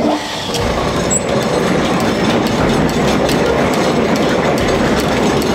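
Antique wooden seed selector (seed-cleaning machine) made by Hofherr-Schrantz-Clayton-Shuttleworth, set running: it starts at once with a dense, steady rattle and clatter of its wooden and metal workings.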